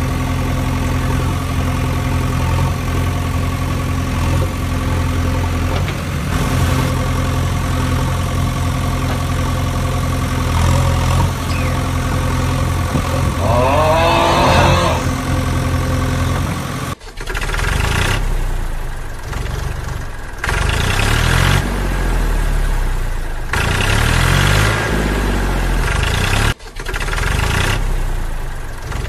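Engine sound of a heavy vehicle idling steadily. About two-thirds of the way through it cuts abruptly to a rougher, pulsing engine sound whose pitch rises and falls, as if revving. A short wavering, gliding higher sound comes a little before the cut.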